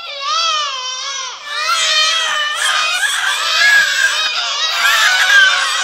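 Several high voices wailing and crying at once, their overlapping cries wavering up and down without a break.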